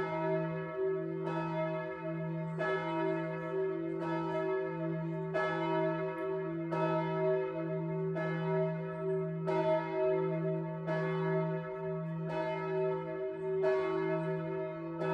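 A large church bell tolling steadily, struck a little less than once every second and a half, each stroke ringing on under the next over a deep, sustained hum.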